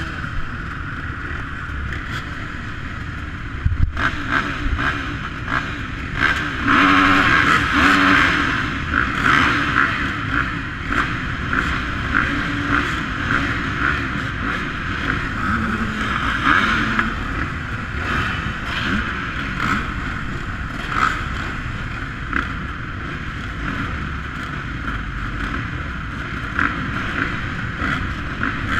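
Several motocross bikes running at the starting gate, with the throttle blipped now and then; the revving is loudest about seven to nine seconds in.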